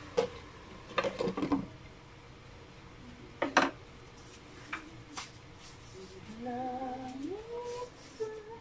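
Glass pan lid knocking and clinking against a stainless pan as it is set down, a few sharp knocks in the first couple of seconds and another near the middle, over the faint steady sizzle of chilies and vegetables cooking under the lid. Near the end a short rising pitched tone.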